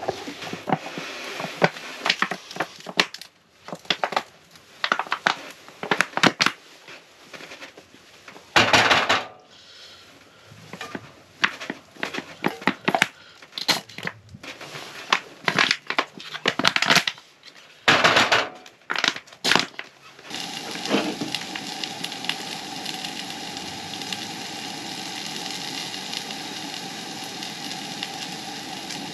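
Crinkling, rustling handling noises and short knocks for about the first twenty seconds. Then a steady sizzle of food frying in a skillet on a two-burner propane camp stove begins.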